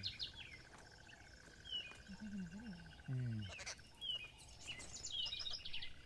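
Several small birds chirping and calling over and over while they mob a snake on the ground: alarm calls at a predator. A steady high thin whine sounds underneath. A low human voice murmurs twice, briefly, around the middle.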